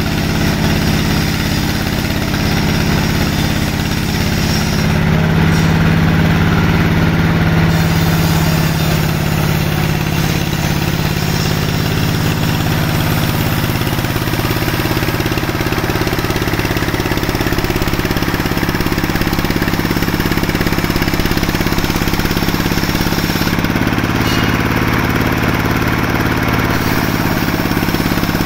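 Sawmill machinery running steadily: a constant engine-like drone with a wide hiss of noise over it, swelling slightly for a few seconds about five seconds in.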